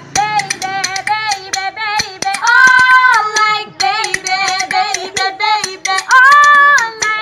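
A song: a high-pitched voice singing in short phrases, with two long held notes, one about halfway through and one near the end, over sharp percussive clicks.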